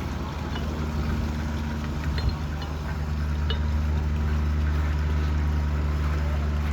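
Bulldozer's diesel engine running at steady revs, with a few faint clicks over it.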